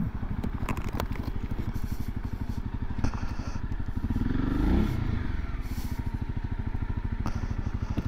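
Honda CRF250 Rally's single-cylinder engine running at low revs as the bike rolls slowly to a stop, with one brief rise and fall in revs about four and a half seconds in.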